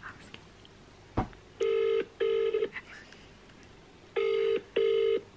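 British telephone ringing tone heard while a call is placed: two double rings ("brr-brr") about two and a half seconds apart, the line ringing unanswered at the other end. A single short knock comes about a second in.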